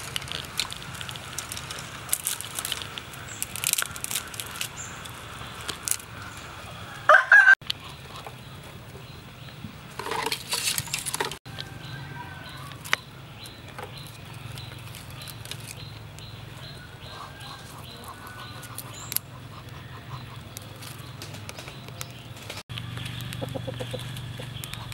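A rooster crowing twice, the louder call about seven seconds in and a longer one about ten seconds in. Between the calls come the snaps and rustle of dry twigs being handled and a small wood fire catching in a clay stove.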